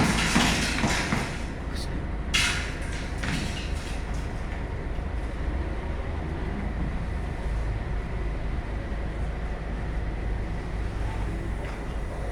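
Heavy diesel engine of a construction truck running with a steady low rumble. A few short, loud, noisy bursts come in the first few seconds.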